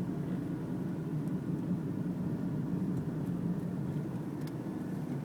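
Steady low road and engine rumble of a car, heard from inside its cabin.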